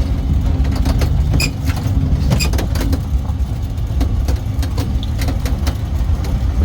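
Steady low rumble of a road vehicle running, with scattered light rattling clicks.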